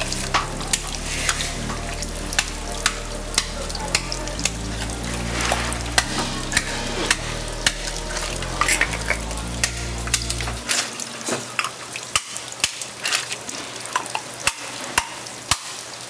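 Food sizzling and frying, with dense irregular crackles and pops. Under it, low steady tones change pitch every second or so and cut off abruptly about eleven seconds in.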